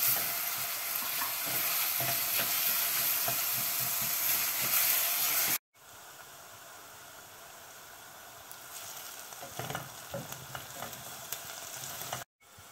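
Chopped onion sizzling in hot olive oil in a stainless steel pot, stirred with a wooden spoon. About halfway through the sound cuts out briefly and comes back as a quieter sizzle with scattered taps and scrapes of the spoon against the pot.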